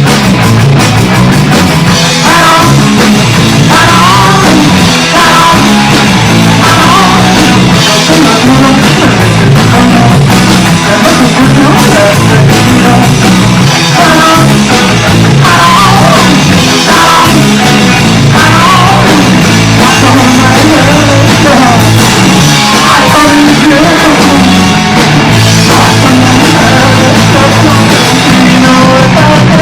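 Punk rock demo recording playing: a full band with bass, drum kit and a sung vocal line, loud and dense throughout.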